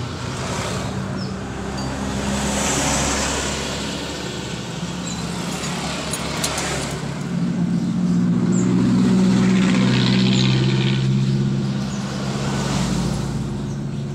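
An engine running, its steady note rising and growing louder about eight seconds in as it is revved, then easing back.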